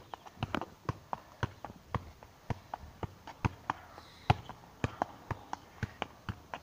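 A football being juggled keepy-uppy: a steady run of light thuds as the ball strikes foot, knee and head, about four touches a second.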